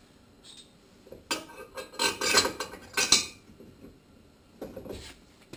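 Loose mounting bolts and hardware clinking and rattling as they are handled, in a burst of metal clatter between about one and three seconds in, with a few lighter clicks near the end.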